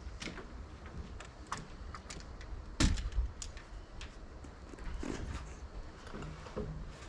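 Scattered knocks and bumps from work on wooden roof rafters, with one loud thump about three seconds in, over a low rumble.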